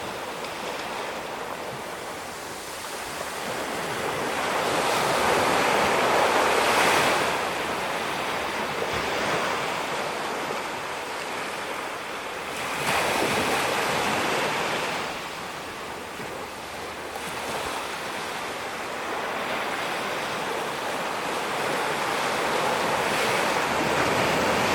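Ocean surf breaking on a beach, with the wash swelling and ebbing as successive waves come in, and wind buffeting the microphone.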